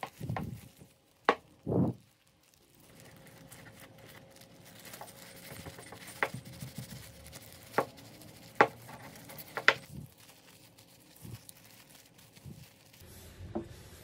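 Scattered sharp knocks and taps of wood on wood, a few seconds apart, with two duller thumps in the first two seconds and a faint steady hiss between the later knocks.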